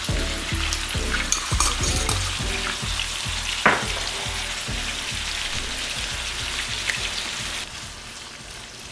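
Ground beef sizzling as it fries in a pan, a steady hiss, with one sharp click about a third of the way in. Regular deep bass notes of background music pulse underneath, and everything drops in level near the end.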